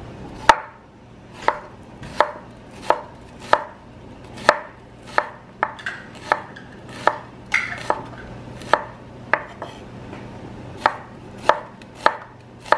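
Chef's knife slicing shallots on a wooden cutting board: a steady run of sharp knocks as the blade hits the board, about one or two a second, with a short pause about two-thirds of the way through.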